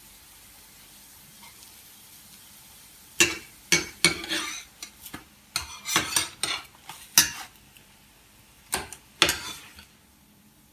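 Metal spatula scraping and clacking against a frying pan as oladyi (thick pancakes) are turned and pushed together, in a quick run of sharp strokes starting about three seconds in and stopping shortly before the end. Beneath it, the low, steady sizzle of the pancakes frying in oil.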